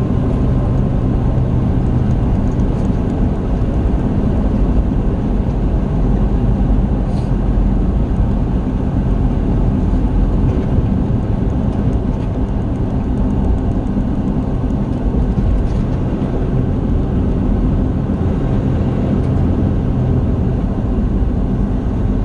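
Semi truck's diesel engine and road noise heard from inside the cab while cruising at steady speed: a continuous, even low drone.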